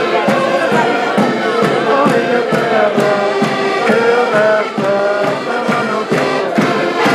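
Accordions playing a lively Portuguese folk song to a steady beat, with voices singing along in chorus.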